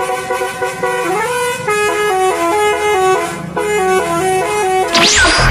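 Basuri telolet bus horn playing a melody, its multi-tone notes stepping up and down in a tune. A short whooshing sweep cuts in near the end.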